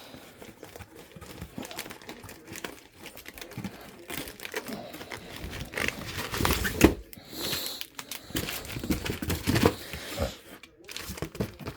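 Crinkling and rustling of firework packaging being handled, with irregular scrapes and knocks.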